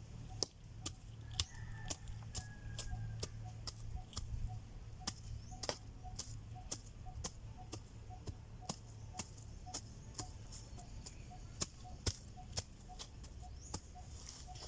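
Background music with a steady ticking beat: sharp clicks about twice a second, each paired with a faint short tone.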